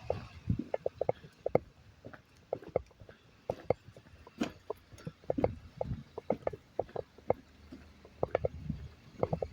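Walking sounds close to a handheld camera: irregular taps and knocks of footsteps and of the camera being handled, over a low rumble.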